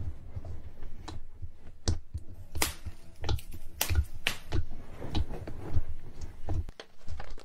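Slime being pressed and squished, giving irregular sharp clicks and soft pops about one or two a second over low thuds.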